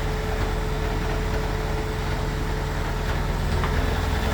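Beko washing machine's drum and motor running on a spin-only cycle with an unbalanced load: a steady low rumble with a steady whine that stops near the end.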